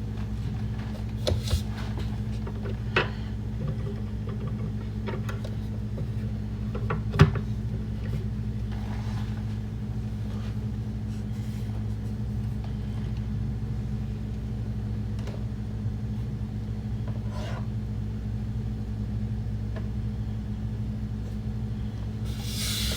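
A steady low mechanical hum runs throughout, with a few light clicks and knocks, the sharpest about seven seconds in. A brighter hissing or rustling sound starts near the end.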